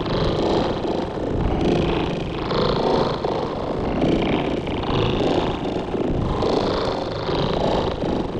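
Sci-fi sound effect: a continuous, grainy rumble that swells about once a second.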